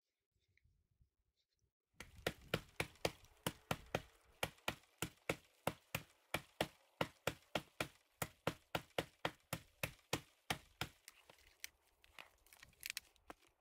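Footsteps crunching in snow, starting about two seconds in at a steady pace of about three crunches a second, then a few irregular cracks near the end.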